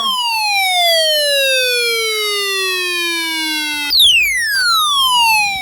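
A siren with a buzzy tone that slides slowly down in pitch, then jumps back up about four seconds in and starts sliding down again.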